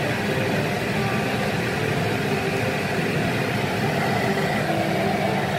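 Steady rushing noise with a low hum from a stovetop running on high heat under a wok of sizzling vegetables.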